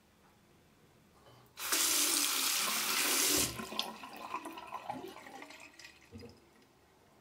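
Bathroom sink tap running onto a hand-held 3D-printed coin, rinsing off leftover PVA support. The water comes on suddenly about a second and a half in and runs hard for about two seconds. It then gives way to smaller splashes and drips that die out about six seconds in.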